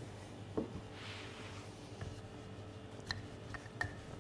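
Wooden rolling pin rolling over floured puff pastry on a wooden bench: faint soft rubbing with a few light knocks, over a steady low hum.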